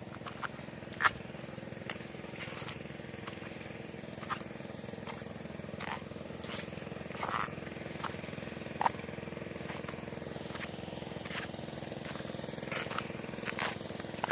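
A small engine running steadily at an even speed, with scattered sharp clicks and knocks over it; the sharpest click comes about a second in.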